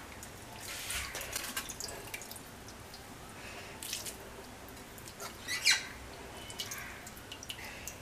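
Water dripping and splattering as handfuls of washed clam meat are squeezed out by hand and dropped into an empty clay pot. It comes as a few short wet patters, with a sharper one about two-thirds of the way through.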